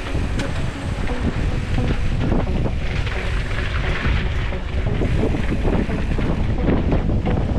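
Heavy wind buffeting the microphone of a camera on a mountain bike being ridden, with scattered knocks and rattles from the bike.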